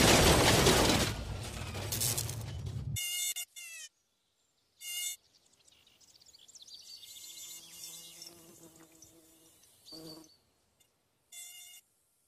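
Loud crashing and smashing with music, cutting off suddenly about three seconds in, then housefly buzzing in four short bursts from flies stuck on a flypaper strip, with a faint drawn-out hum between them.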